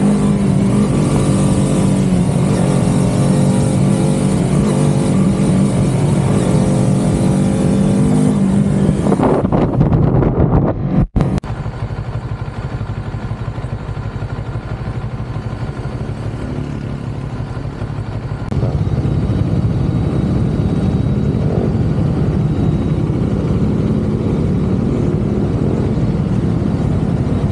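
CFMoto 650NK parallel-twin motorcycle engine running under way, its note holding fairly steady for the first several seconds. The sound briefly cuts out about eleven seconds in. It goes on as a quieter rush of engine and road noise, which grows louder again about two-thirds of the way through.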